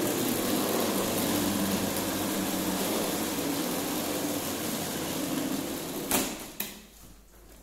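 Hard plastic wheels of a toddler's ride-on toy car rolling across a tiled floor, a steady rumbling rattle. It stops with a knock about six seconds in, followed by a few light clicks.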